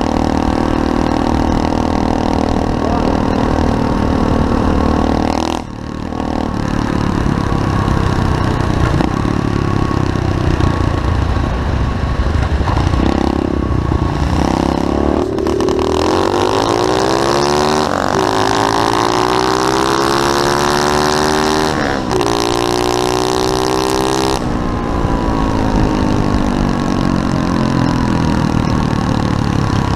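SSR 125cc pit bike's single-cylinder four-stroke engine running under throttle while riding. About halfway through, the revs climb steadily with a brief break for a gear change. The pitch then drops back as the throttle eases.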